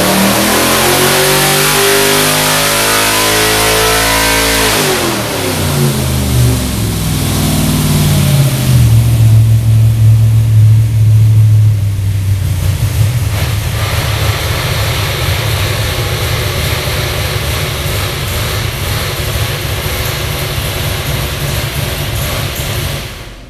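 Big-block Chevy 565 cubic-inch V8 crate engine on an engine dyno, climbing in revs under load for about five seconds. The throttle then closes, the revs fall away, it settles to idle, and the engine is shut off near the end.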